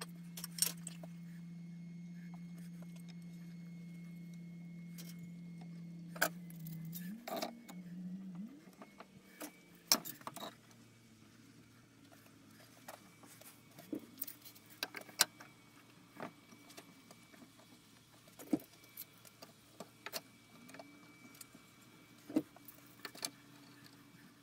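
Steel bar clamps clinking and clicking at irregular moments as they are set along a freshly glued fretboard and tightened onto the neck blank. A steady low hum runs under the first several seconds, then drops to a fainter one.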